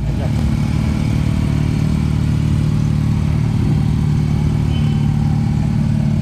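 BMW R nineT's 1,170 cc boxer twin engine running steadily at low revs, with no revving.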